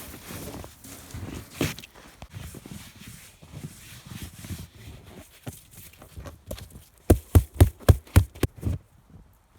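Footsteps crunching through deep snow, then near the end a quick run of about seven heavy, low thumps.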